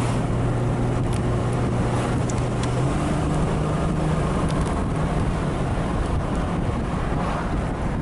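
Jaguar 5.3 V12 engine pulling under light acceleration in the moving car, its steady note stepping up in pitch about three seconds in and again a little later, over a wash of wind and road noise.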